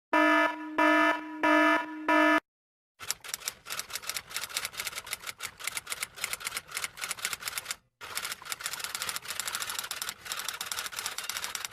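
A sound effect of four short electronic beeps, followed after a brief pause by a long run of rapid typing clicks, like a typewriter or keyboard being hammered fast, with a short break partway through.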